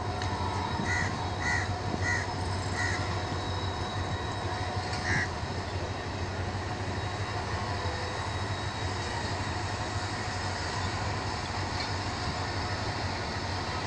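A crow cawing, four quick caws about a second in and one more around five seconds, over the steady drone of a diesel locomotive running at the platform.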